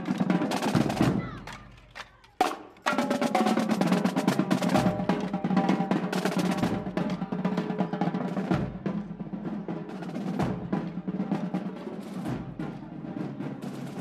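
Background music built on rapid drumming, with a drum roll over sustained pitched tones. It dies down a second or two in, gives one short hit, then comes back in full just before three seconds in and runs on.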